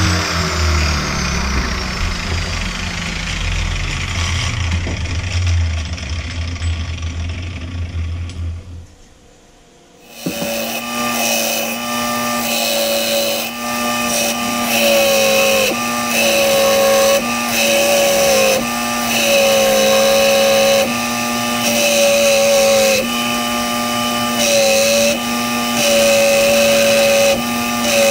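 An angle grinder spinning down after being switched off, its pitch falling over the first couple of seconds over a low rumble. After a short lull about ten seconds in, a bench belt sander runs steadily while steel is pressed to the belt, its pitch dipping under the load each time and recovering.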